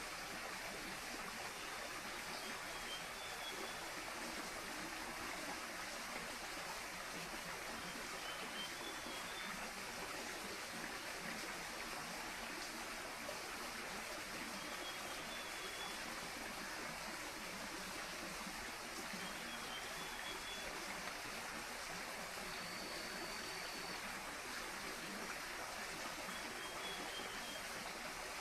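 Javan rainforest ambience: the steady rush of running stream water, with a short high chirping call repeated about every six seconds. Near the end a single high note is held for about a second and a half.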